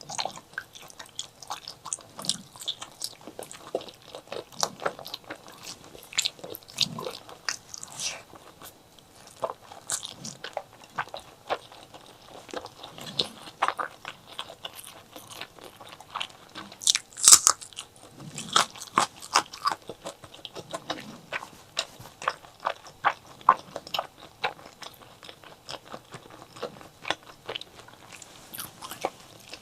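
Close-miked mukbang eating sounds of chili with white rice: irregular crunching bites and wet chewing clicks, one louder crunch a little past halfway.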